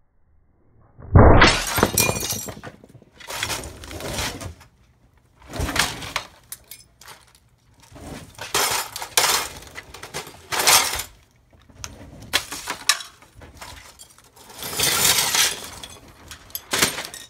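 A dumbbell smashes onto a framed glass picture on concrete about a second in, the loudest sound here, and the glass shatters. Broken glass then clinks and scrapes in repeated bursts as the shards and the frame are handled and lifted.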